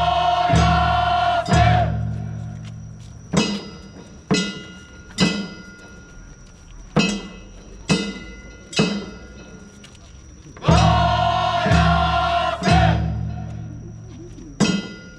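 Kunchi float-practice music: a group of voices calling out in long held chants twice, and between them struck percussion hits about once a second, each ringing on and fading.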